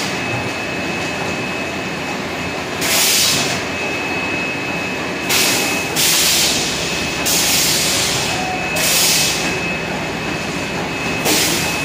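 Automatic water-bottle rinsing-filling-capping machine running with a steady mechanical clatter, broken by repeated bursts of high hissing every second or two. A faint high whistle comes and goes.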